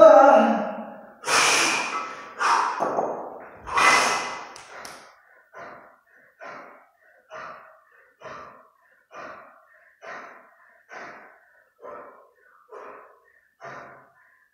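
Heavy breathing of a kettlebell lifter holding two 32 kg kettlebells in the rack position: a few loud, forceful breaths in the first few seconds, then short, even breaths a little under a second apart that grow fainter. This is his recovery breathing between reps of a long-cycle set.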